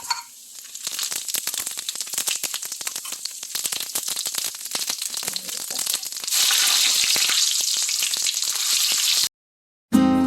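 Cumin seeds and asafoetida crackling and sizzling in hot mustard oil in a pan, with a light utensil knock at the start. The sizzle grows louder and steadier about six seconds in, then cuts off abruptly near the end.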